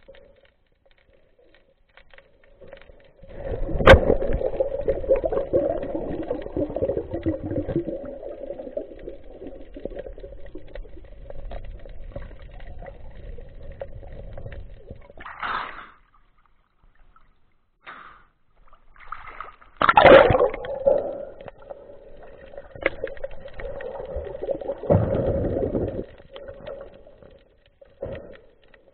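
Water sloshing and gurgling, heard muffled with the camera underwater near the surface. There are louder churning surges about three seconds in and again about twenty and twenty-five seconds in.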